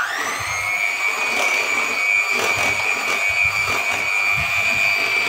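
Electric hand mixer running at speed with its beaters in butter, sugar and egg cake batter, a steady high whine. It is still spinning up at the start, its pitch rising briefly before it holds steady.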